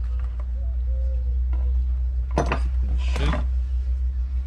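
A knife scraping out the inside of a split spiny lobster shell, in two short scrapes about two and a half and three seconds in, over a steady low rumble.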